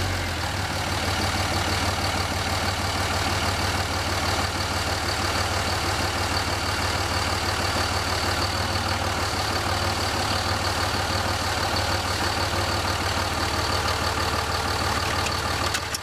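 Dodge Ram heavy-duty pickup's engine idling steadily just after starting, running while the power steering turns the front knuckle to push the hub assembly out.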